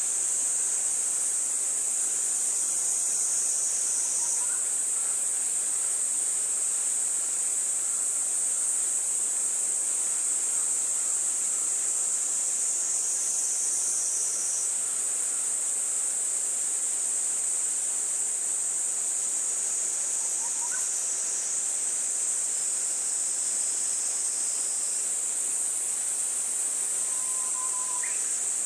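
Steady high-pitched insect chorus, with a second, pulsing insect call joining in for a few seconds at a time, and a few faint short chirps.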